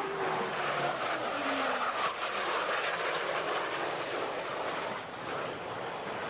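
Jet roar of four Blue Angels F/A-18 Hornets, twin-engine fighters, flying overhead in diamond formation, a steady rushing roar that eases slightly near the end.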